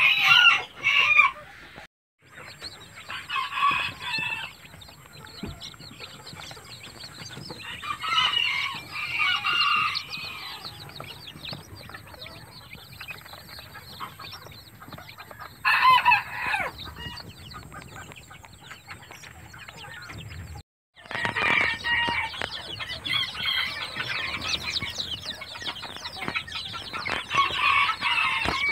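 Chickens calling loudly for about the first second, then a brood of young chicks peeping in bursts. The peeping is busiest and nearly continuous over the last seven seconds or so.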